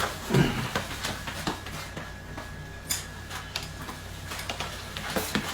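Scattered light clicks and knocks of small objects being handled, a few sharp ticks spread unevenly over a few seconds.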